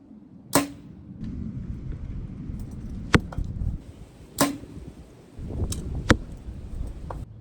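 A PSE Mach 33 compound bow is shot twice, each release a sharp snap with a brief low string thrum. Several lighter clicks come between the shots, and a low wind rumble on the microphone rises and falls.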